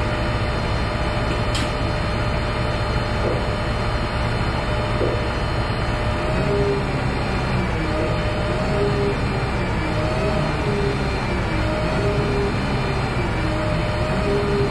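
Self-propelled gantry crane's engine running steadily. From about six seconds in, a wavering tone rises and falls roughly once a second over the rumble.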